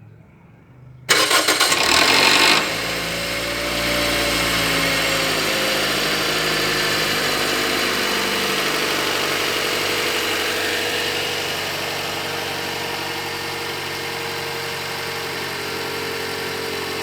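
Cold start of a Toyota Corolla Altis 1.6 four-cylinder petrol engine: about a second in the starter cranks loudly for a second and a half with a rattle, then the engine catches and settles into a steady fast cold idle that eases down a little near the end.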